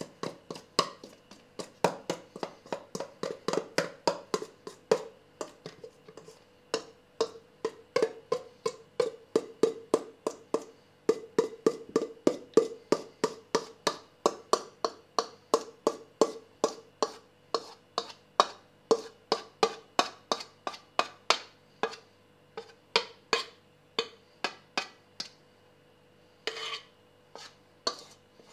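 Metal spoon scraping and knocking sticky dough out of a stainless steel mixing bowl into a loaf tin: rapid, regular clicks about four a second, with the bowl ringing under them.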